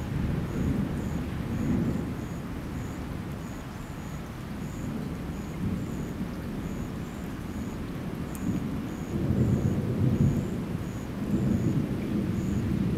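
Thunder from a lightning storm rolling in low rumbles that swell and fade several times, loudest about two-thirds of the way through.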